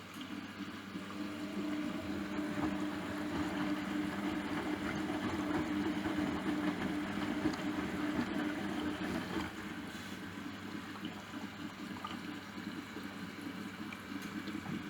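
Hotpoint washing machine running through its rinse and distributing stage: a steady motor hum with water swishing in the turning drum.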